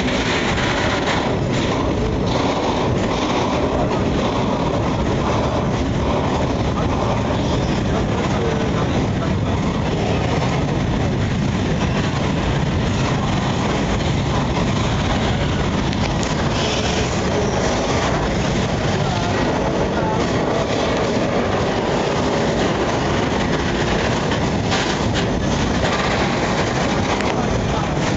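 A long freight train of tank wagons rolling past at close range: a steady, unbroken rumble of steel wheels on the rails.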